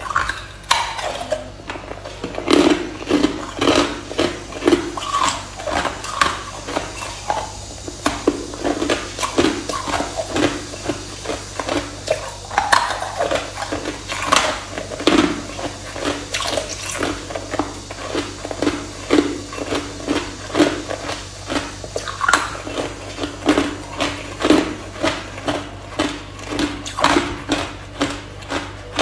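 Ice being chewed and crunched in the mouth, a steady run of crisp crunches about two a second.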